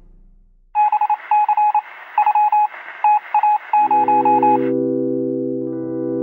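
Electronic beeps at a single pitch, short and long in an uneven rhythm over a hiss, like a telegraph or dialing sound effect. Near the end of the beeping a held musical chord comes in and sustains.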